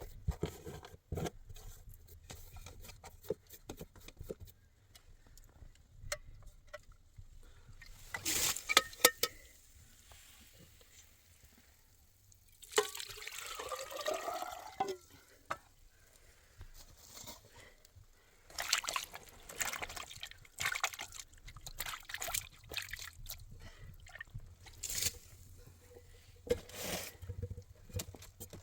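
Liquid poured into a container, its pitch rising as it fills, among scattered clicks and knocks of things being handled.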